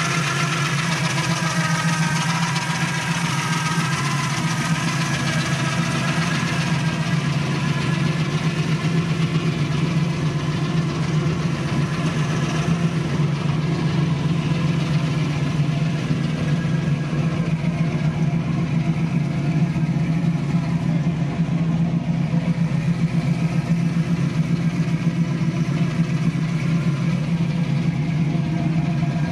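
1967 Camaro SS's 350 small-block V8 idling steadily.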